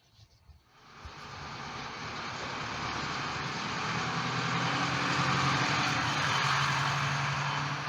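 A motor vehicle's engine, a low hum under a rushing noise, building up from about a second in and holding loud.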